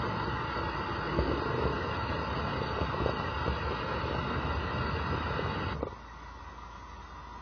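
Model train running on the layout track: a steady rumble of motor and wheels with faint clicks. It drops off suddenly about six seconds in.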